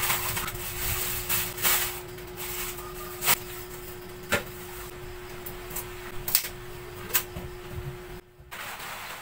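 Groceries being unpacked by hand: packaging rustling and a few sharp taps and knocks as cartons and packets are set down on a cloth-covered table, over a steady low hum. The sound drops out briefly near the end.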